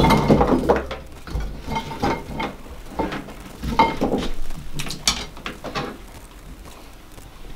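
Chunks of raw potato tipped from a plastic colander onto a ceramic plate: a cluster of knocks and clatters at the start, then scattered single taps as the colander is shaken and the pieces are handled.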